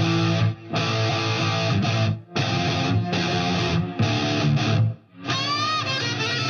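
Rock music with electric guitar, stopping for a moment three times, about half a second, two seconds and five seconds in; after the last break a line of bending notes rides over it.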